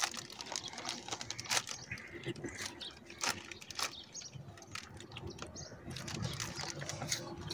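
Crinkling of a plastic chips packet being bitten open and rummaged by hand, heard as a scatter of short, sharp crackles.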